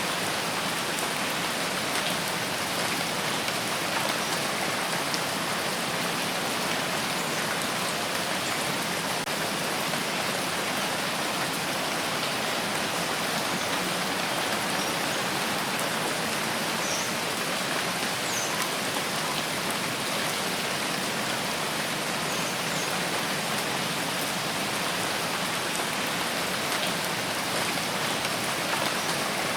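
Steady rain falling on a surface, an even hiss of many drops without pauses.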